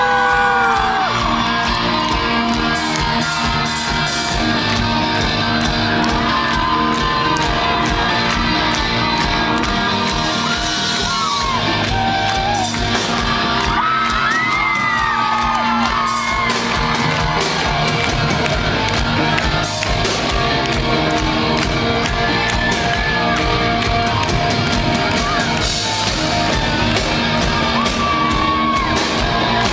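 Rock song playing, with a singing voice over a steady drum beat.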